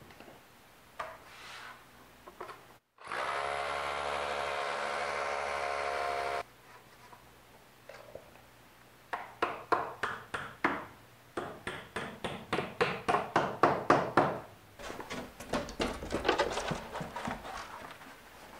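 Hammer drill with a masonry bit boring a hole through foam board into a concrete wall for about three seconds, a steady whine. Then a hammer taps a plastic foam anchor into the hole: a fast run of sharp taps that grow louder, a short pause, and more taps.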